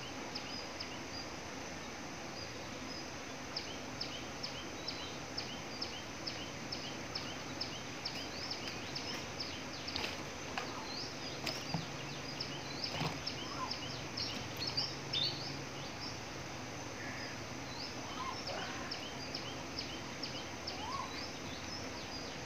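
A steady run of short, high chirps from a small animal, about three a second, over outdoor background noise, with a few faint sharp clicks in the middle.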